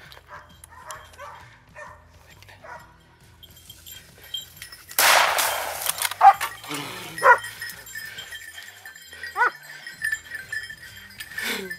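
Hunting dogs baying a wild boar in the brush: quick barks at first, then louder yelps that fall in pitch. About five seconds in, a sudden loud burst of noise lasts about a second.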